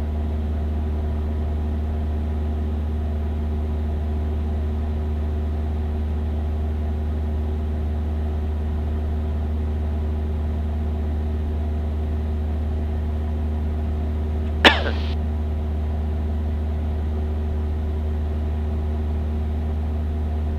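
Cessna 172's engine and propeller drone heard steadily from inside the cabin, a constant low hum with several steady tones. A single brief sharp sound cuts in about two-thirds of the way through.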